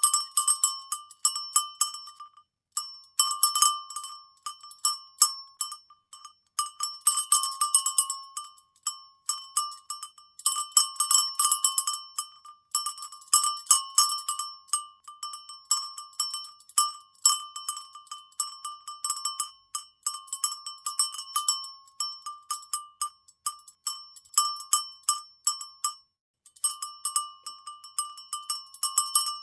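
Cowbell shaken and rattled, its clapper clanking rapidly and unevenly in bursts with short pauses between them, each strike leaving a bright metallic ring.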